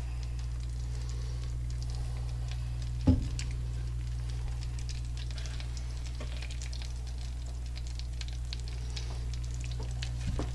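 Breaded walleye fillets sizzling and crackling in butter and olive oil in a frying pan, over a steady low hum. A single loud knock comes about three seconds in, and a smaller one near the end.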